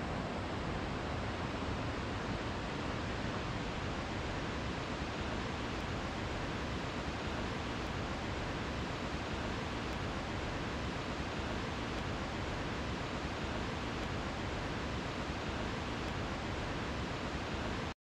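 Steady, even rushing of water with no separate events or changes, stopping abruptly at the very end.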